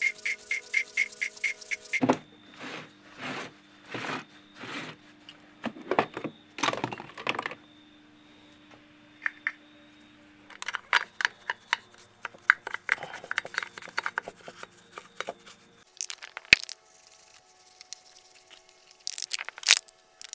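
Poppet valve being lapped into its seat in a motorcycle cylinder head with grinding paste: irregular gritty scraping strokes in bursts, with a pause in between and a few sharp clicks near the end. A rhythmic beat fills the first two seconds.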